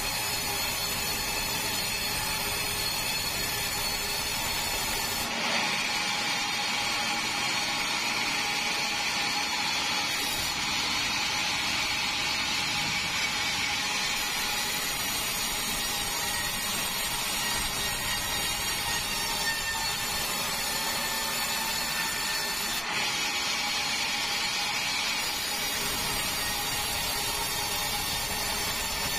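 Large vertical band saw sawmill cutting through a long meranti log: a steady machine drone with a high whine and sawing noise. The sound turns brighter about five seconds in and shifts again about 23 seconds in.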